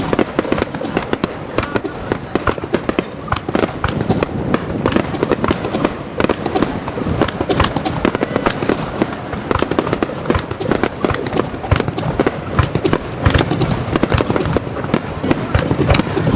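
Fireworks display: a dense, continuous run of bangs and crackles, many a second.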